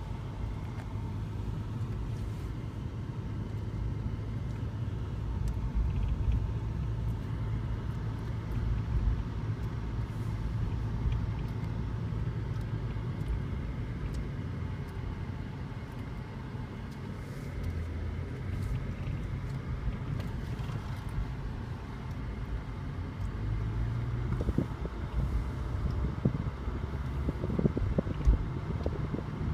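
Car cabin noise while driving: a steady low engine and road hum whose pitch shifts a few times as the car changes speed. A few short, light thumps come near the end.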